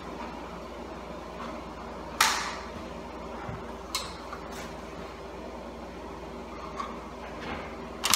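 A sharp knock about two seconds in, then a few lighter clicks and another knock near the end, over a steady low hum.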